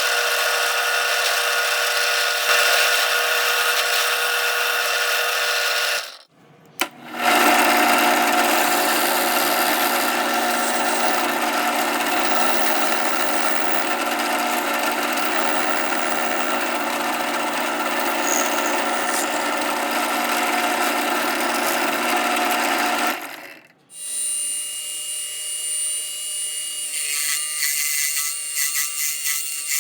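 A 60 W micro metal lathe's small motor running steadily with a whine, its cutting tool turning brass rod. It stops abruptly for a moment about six seconds in and again near two-thirds of the way through. After the second stop it runs quieter and more unevenly, with a higher whine.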